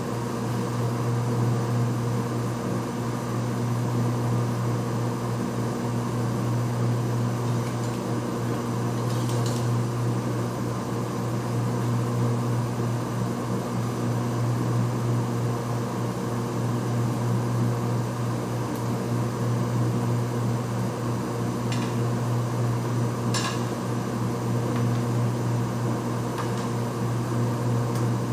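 Steady low mechanical hum, like a fan or machine running, with a few light clicks and taps around the middle and near the end.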